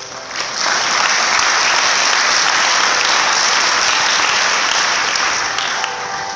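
Audience applauding, swelling in about half a second in and dying down near the end as background music comes back up.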